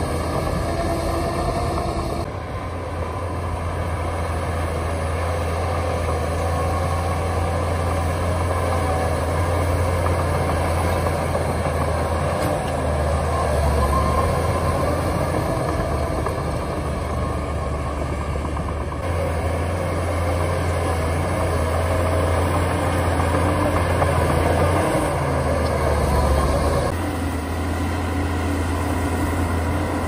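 Shantui DH17 bulldozer's diesel engine running steadily as the dozer pushes soil, its pitch and loudness shifting slightly with the load.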